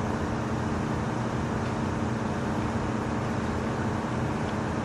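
Engine idling steadily, an even low hum.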